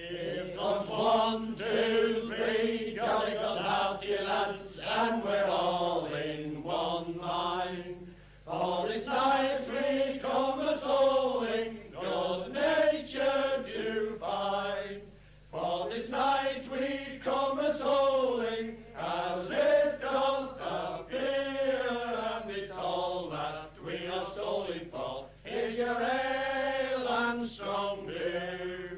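Men singing a traditional English folk song in long held phrases, with brief pauses for breath between them.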